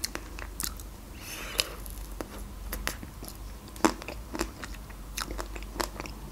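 Close-up mouth sounds of chewing a bite of a chocolate-coated Magnum ice cream bar, with scattered sharp crackles as the chocolate shell breaks up.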